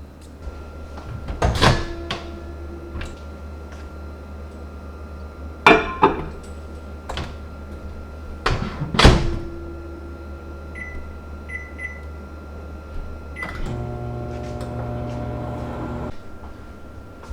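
Kitchen handling sounds: three loud knocks and clatters spread over the first nine seconds, a few short electronic beeps, then a kitchen appliance humming for about two and a half seconds near the end.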